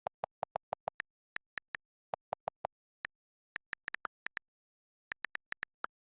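A run of short electronic beeps in quick groups, most high-pitched and some lower, like a simple beeped tune, with dead silence between the notes.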